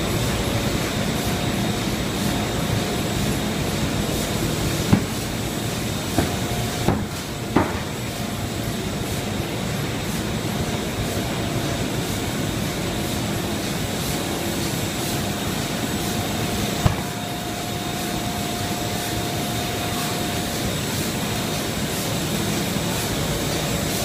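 Ding Shung FM-1050 film laminating machine running steadily, a constant mechanical rumble with a faint thin whine over it. A few sharp knocks cut through, clustered about five to eight seconds in and once more later.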